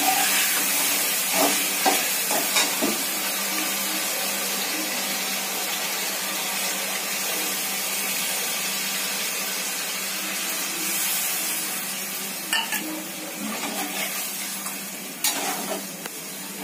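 Food sizzling and frying in a steel kadhai over a gas flame, with a steady hiss. A metal ladle stirs, scrapes and knocks against the pan a few times near the start and again near the end.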